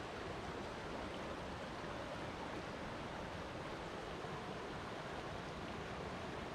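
Flowing water, a steady even rushing that stays at one level throughout.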